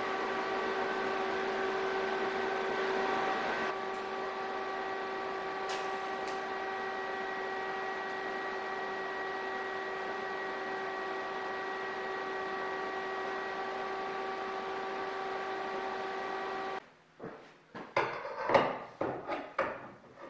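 TIG welding arc tack-welding steel fuselage tubes: a steady buzzing hiss with a hum-like tone that cuts off suddenly near the end. It is followed by a quick run of clanks and knocks as the steel tubes are handled on the table.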